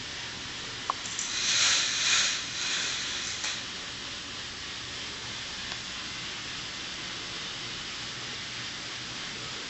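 Plastic K'nex roller coaster cars rolling fast down the track: a rattling rush that starts about a second in and dies away after about two seconds, with a few light clicks, over a steady faint hiss.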